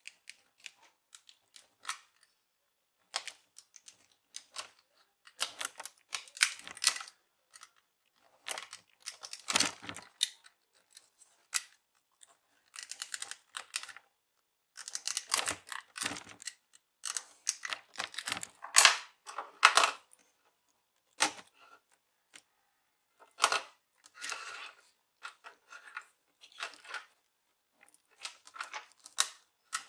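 Irregular bursts of clicking, crackling and scraping from a laptop's plastic display casing being pried apart, the screen held in the back cover by old epoxy. The loudest bursts come about a third of the way in and again about two-thirds in, with short pauses between.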